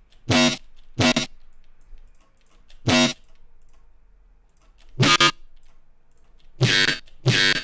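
Short resampled synth bass one-shots played one at a time: six brief pitched hits, irregularly spaced, the last two close together near the end.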